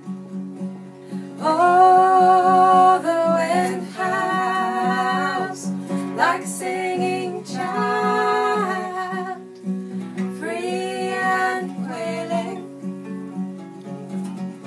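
Two acoustic guitars strummed as accompaniment while a woman sings a folk song in several phrases. The singing comes in about a second and a half in and stops a couple of seconds before the end, with the guitars carrying on alone.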